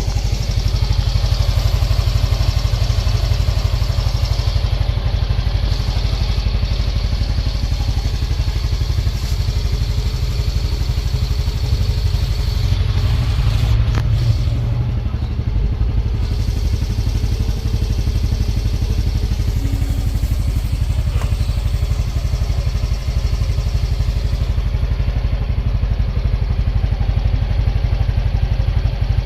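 Yamaha Mio i 125 S scooter's single-cylinder four-stroke engine running steadily through its stock exhaust, with a deep, even exhaust note.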